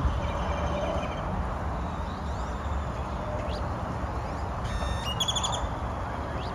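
Small birds chirping: short high rising chirps scattered through, and about five seconds in a quick run of high notes, over steady low background noise.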